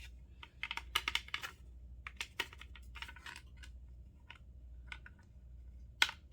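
Irregular clicks and light rattles of a plastic alarm housing and its parts being handled and taken apart by hand, in loose clusters with a few sharper clicks near the end.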